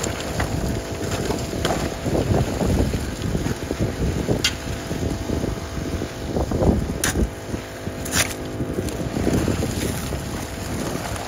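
Small Honda water pump engine running steadily while steel shovels scrape and crunch into river gravel and dump it into a highbanker sluice, with a few sharp clinks of shovel on stone.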